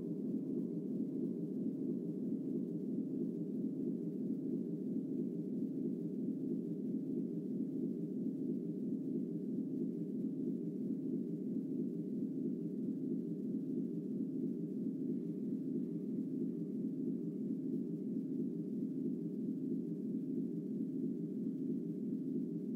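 A steady electronic drone of several low tones sounding together, with an even, rapid pulsing running through it. It comes from the two small cube loudspeakers of a sound installation.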